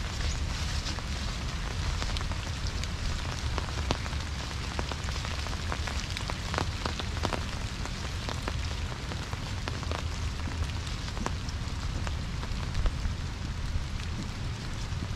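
Steady crackling rustle of dry fallen leaves, with a low wind rumble on the microphone.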